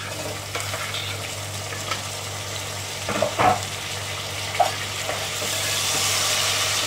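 Chopped tomatoes sizzling in hot oil with fried onions in an aluminium pot, the sizzle growing louder toward the end as they are stirred in. A steel spoon scrapes against the pot a few times around the middle.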